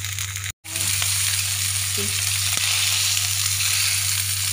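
Salmon steak frying in a nonstick pan, in its own rendered fat and a little cooking oil, with a steady sizzle. The sound cuts out for a moment about half a second in.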